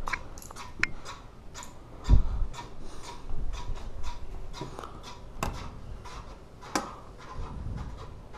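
Ceiling fan jamming: irregular ticking and rubbing clicks, a few a second, as a blade catches against another part of the fan, with a heavy thump about two seconds in. The owner believes a loose, misaligned blade is the cause.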